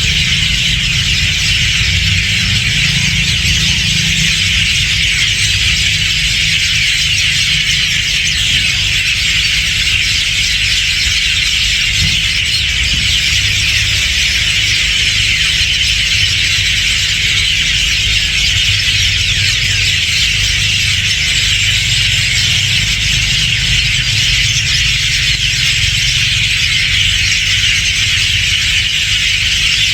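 Dense, unbroken chorus of hundreds of birds calling at once, a high-pitched chattering mass with no single voice standing out, over a steady low rumble.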